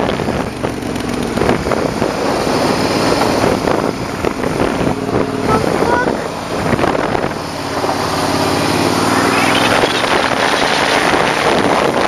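Loud wind buffeting the microphone of a moving motorcycle, over the bike's engine. About eight seconds in the engine note rises as the bike accelerates, and the sound gets louder.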